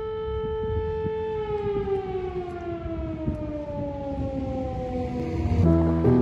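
Air-raid siren holding a steady wail, then winding down in a slow falling glide over several seconds. Music comes in near the end.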